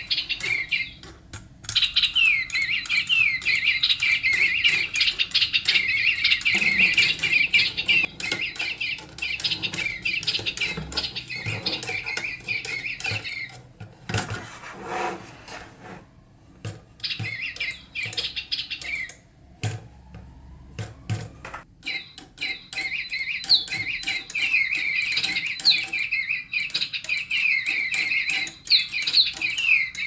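DigiBirds electronic toy birds tweeting in rapid, high chirps that break off twice, about halfway through and again a little later, then resume, with small clicks throughout.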